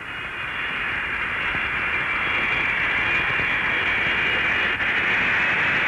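Boeing 707-320 Intercontinental's four turbojet engines at takeoff power as the airliner comes down the runway toward the listener: a hissing jet noise that grows louder over the first few seconds and then holds steady.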